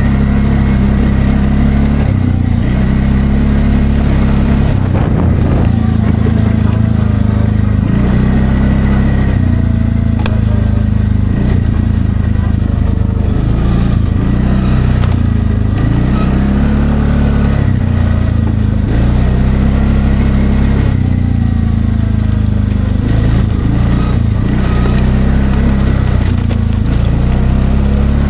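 Linhai Landforce 550L ATV's single-cylinder engine running on the move, its pitch stepping up and down every few seconds as the throttle is opened and let off.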